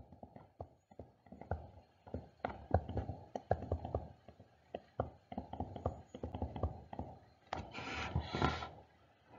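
Stylus tapping and scratching on a tablet screen during handwriting: an irregular run of soft clicks, with a brief hiss about eight seconds in.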